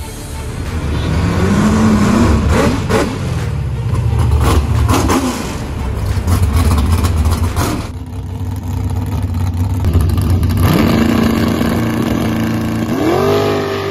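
Drag-race V8, a stroked 409-cubic-inch Ford 351 Cleveland in a 1969 Mercury Cougar, revving hard in rising and falling bursts. Later it is held at steady revs on the starting line, then climbs in pitch near the end as the car launches.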